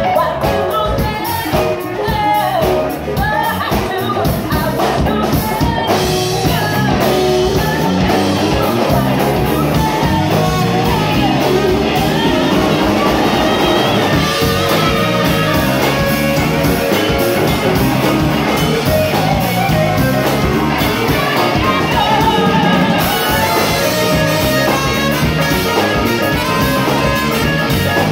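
Live rock band playing: a woman singing lead over drums and electric guitar, loud and steady.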